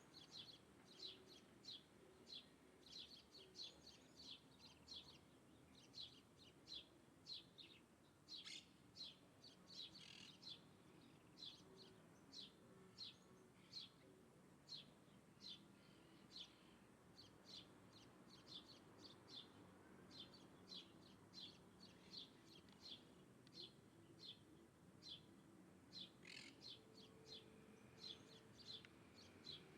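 A small bird chirping in a long, unbroken series of short, high, faint chirps, about two a second, with a couple of louder notes among them.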